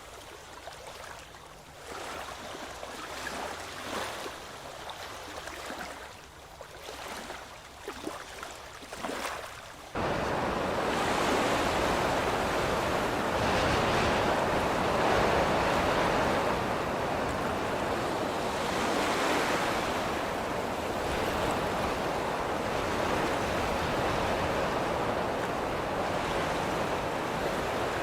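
Ocean waves breaking and washing ashore, a steady rush that swells and ebbs, with some wind on the microphone. About ten seconds in it cuts in abruptly after a quieter stretch of lapping water with small splashes.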